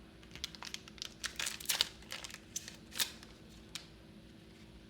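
Foil trading-card booster pack being torn open and its wrapper crinkled by hand: a run of sharp crackles and rips through the first three seconds, tapering off after.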